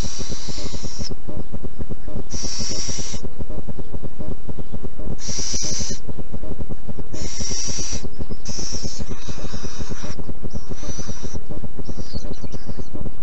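Little owl chicks giving harsh, breathy hissing begging calls, about every one and a half to two seconds, over a steady low rumble.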